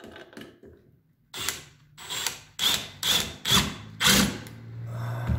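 Cordless drill driving a screw into a metal bar bracket in about six short, loud bursts, followed by a steady low hum near the end.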